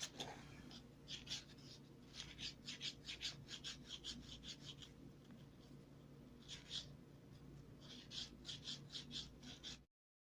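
Faint rustling and scratching of paper being handled and creased, in short quick strokes that come in clusters, cutting off suddenly near the end.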